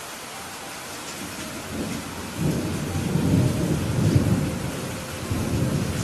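Steady rain with a rumble of thunder that builds about two seconds in, peaks, eases and swells once more near the end.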